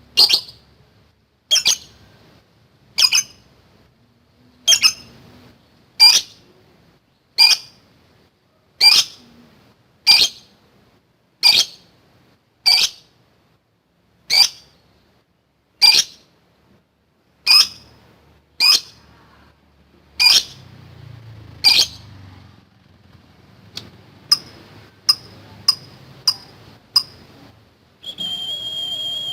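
Lovebird giving single sharp, shrill calls, one about every second and a half, followed by a run of quicker short chirps; a steady high tone starts just before the end.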